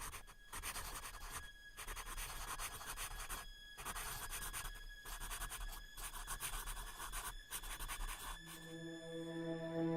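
Scratchy, crackling noise with faint steady whistle tones, broken by several brief dropouts. Near the end a sustained low musical note fades in as background music begins.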